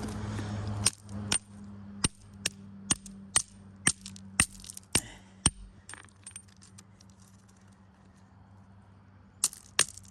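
Chert rocks struck against each other one-handed to test the stone: a run of sharp, ringing clinks about two a second, a pause, then a few more strikes near the end. A faint steady low hum runs underneath.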